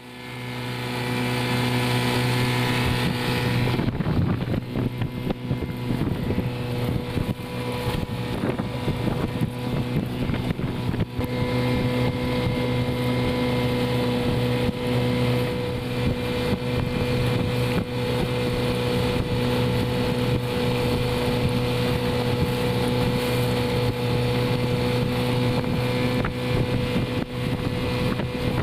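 Small boat's outboard motor running at a steady cruising speed, with water rushing along the hull and wind on the microphone. A high hiss above the motor drops away about four seconds in.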